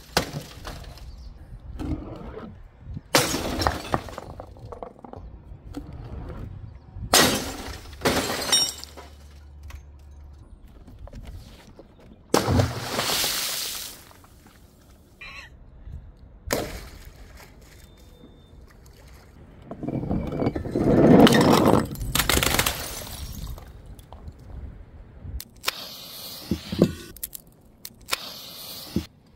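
A series of drops onto tiled paving, about six in all: liquid-filled balloons bursting and splashing, and glass smashing. The loudest and longest crash comes about two-thirds of the way through.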